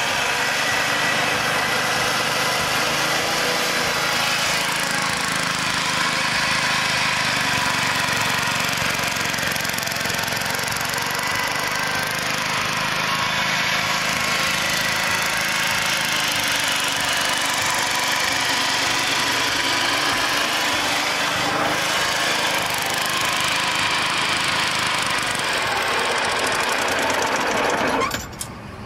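Small gas engine of a vintage Mott hammer knife (flail blade) mower running steadily while mowing regular grass. The sound drops off suddenly near the end.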